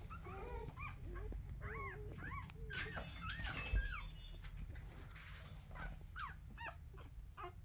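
Newborn golden retriever puppies whimpering and squeaking: a run of short, high cries that rise and fall. There is a low thump a little under four seconds in.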